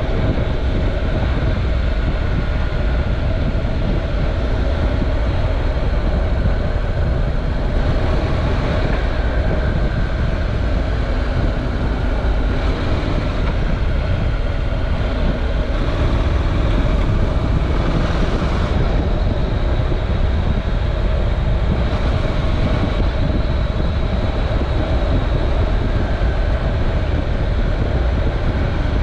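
Honda NC700X parallel-twin engine running steadily as the motorcycle rides along, with heavy low wind rumble on the onboard camera microphone and a few brief swells of hiss.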